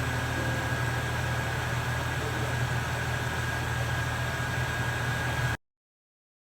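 Steady low machine hum with a faint thin whine above it, cutting off abruptly about five and a half seconds in.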